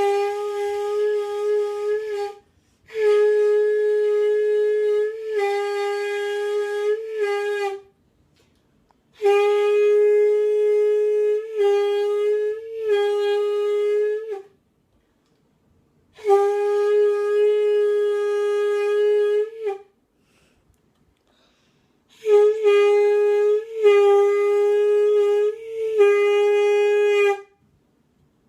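Single-reed mouthpiece blown on its own, without the rest of the instrument, in repeated attempts at a G sharp. It sounds a steady reedy note in six long blows of a few seconds each, with short pauses between them and brief hiccups in pitch within the blows.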